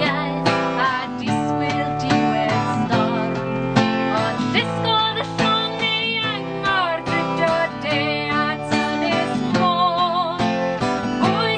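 A woman singing a folk song in Welsh, with vibrato, over a strummed acoustic guitar.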